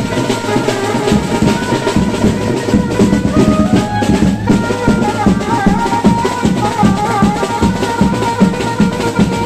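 A banjo party band playing: an electronic keyboard melody over a steady, fast beat on slung marching drums beaten with sticks.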